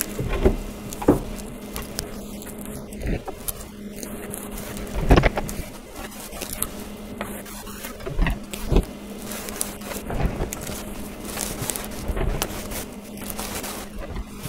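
Fabric rustling and soft handling knocks as a cloth bassinet skirt is wrapped around the wooden base and its hook-and-loop tape pressed into place, with one louder knock about five seconds in. A steady low hum runs underneath.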